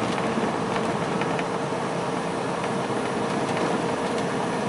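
Steady engine and road noise heard inside a semi-truck cab while cruising on the highway, with a constant hum running under it and a few light clicks.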